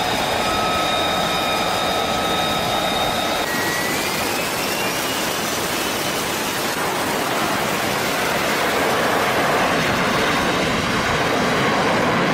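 F-35B Lightning II's F135 jet engine running at high power: a loud, steady rush with high whining tones over the first few seconds, a whine that rises in pitch about four seconds in, and a slight build in loudness near the end.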